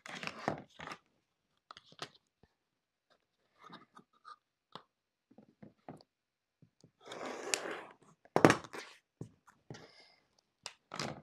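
Fabric and cutting tools being handled on a cutting mat while a sewn zipper panel is squared up: intermittent rustles, scrapes and taps, with a longer scrape about seven seconds in and the loudest knock about a second later.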